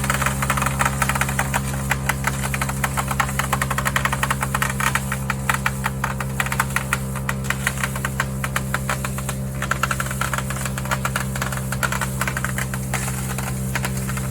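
Barreto 3107C wood chipper's engine running steadily at a constant speed, with a dense, irregular clatter and cracking of wood scraps being chipped.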